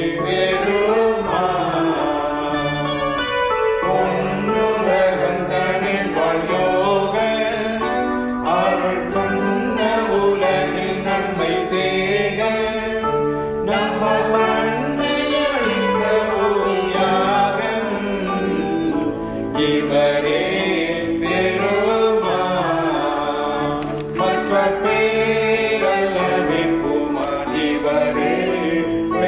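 Tamil Christian hymn sung with instrumental accompaniment, running from a verse into its refrain.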